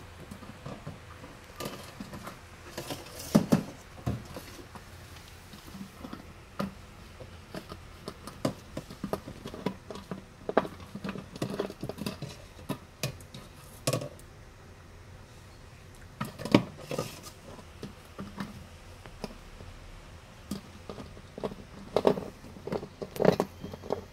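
Irregular clicks, knocks and scrapes of a plastic bottle as a puppy chews and paws at it, knocking it against the plastic crate, with a few louder knocks.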